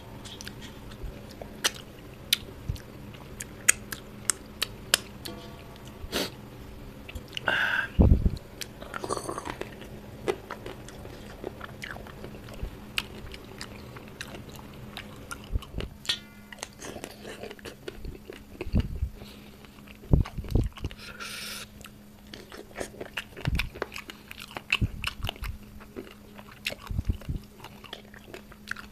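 A person eating fish-head curry with his fingers, chewing and biting with many short wet mouth clicks and a few louder bites, some with a crunch, over a faint steady hum.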